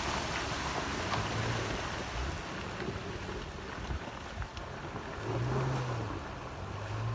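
VW Passat B5 4motion's engine running under throttle in mud, its note swelling and falling away about two-thirds of the way through, over a steady rushing noise.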